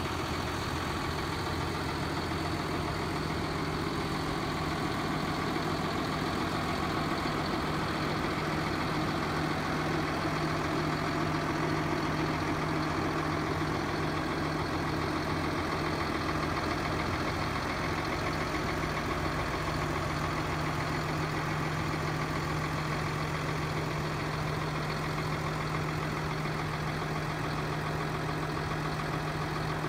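John Deere 7530 tractor's 6.8-litre six-cylinder diesel engine idling steadily.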